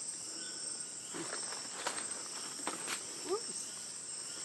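Steady high-pitched rainforest insect chorus, with a few soft clicks and a short rising chirp about three seconds in.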